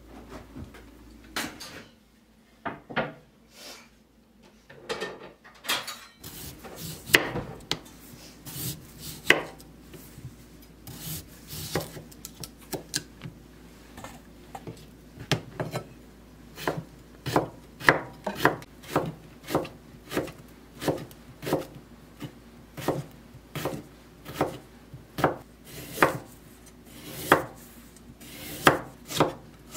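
Kitchen knife slicing radish and carrot on a wooden cutting board, each stroke ending in a sharp knock of the blade on the board. The knocks are sparse and uneven for the first few seconds, then settle into a steady rhythm of about one to two a second.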